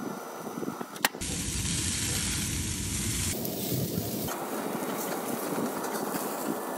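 Bacon-wrapped appetizers sizzling on the grates of a pellet grill: a steady hiss that changes abruptly in tone a few times, with a sharp click about a second in.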